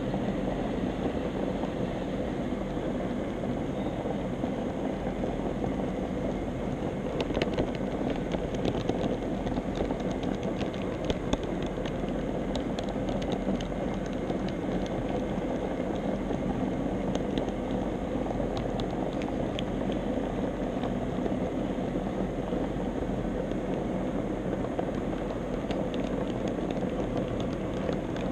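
HO scale model trolley running along its track, a steady mechanical hum of the small motor and wheels. A run of sharp clicks starts about seven seconds in, with a few more later.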